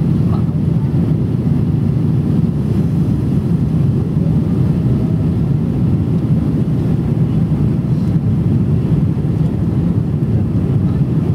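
Steady low rumble of a Boeing 777's engines and airflow, heard inside the passenger cabin on approach with the flaps extended.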